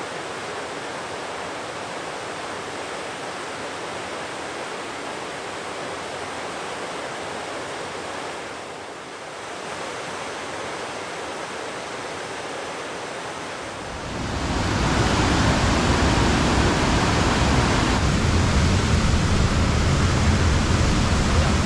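Steady rush of a waterfall about 10 m high pouring into a rocky river pool. It becomes suddenly louder and deeper about fourteen seconds in.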